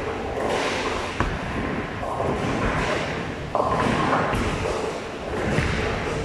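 Bowling ball released onto the wooden lane with a sharp thud, rolling down the lane and crashing into the pins a couple of seconds later in a burst of clatter, over the steady rumble and pin noise of a busy bowling alley.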